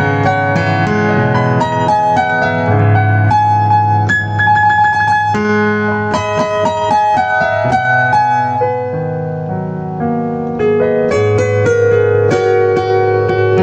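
Solo piano played with the Yamaha CFX concert grand piano sound: a melody over bass chords. It grows softer about two-thirds through, then picks up again.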